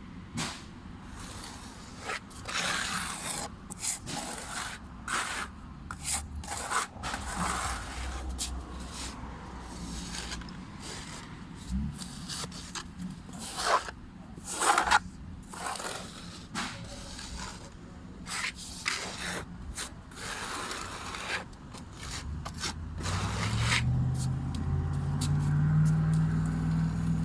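Repeated, irregular scraping strokes of a hand tool working a crack in a stucco surface. Near the end an engine hum rises in pitch and grows louder.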